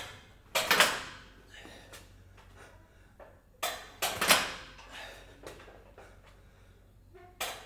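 Gym strength-and-conditioning work: heavy thuds and knocks, each a quick pair of hits, repeating about every three and a half seconds and ringing briefly in a large hall.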